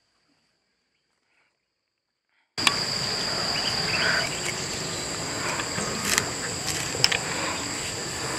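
Near silence, then outdoor ambience cuts in about two and a half seconds in: insects singing in a steady high-pitched chorus at two pitches, with a few faint clicks.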